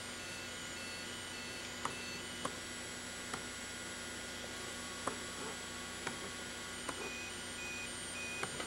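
Steady electrical hum and hiss, with about seven faint clicks scattered through.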